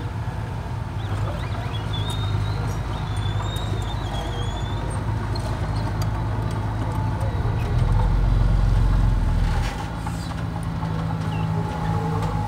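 Komatsu D20 mini crawler dozer's diesel engine running under load as it pushes soil. It gets louder and deeper for nearly two seconds, about eight seconds in.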